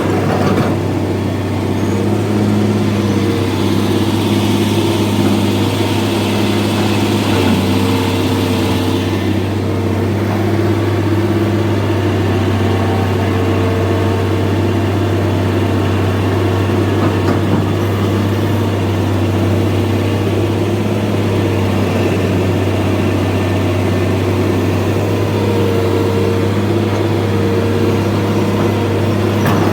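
Excavator's diesel engine running steadily at idle, a constant low hum.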